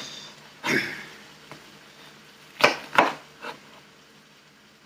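Dull kitchen knife cutting an onion on a cutting board: a few separate strokes, two sharp knocks near the middle, then a pause.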